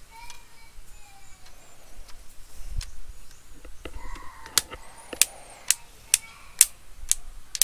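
A run of sharp clicks, about two a second, through the second half, with a few weaker clicks before them.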